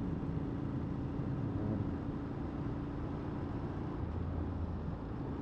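2008 Ducati 848's L-twin engine running steadily as the bike is ridden, along with road noise.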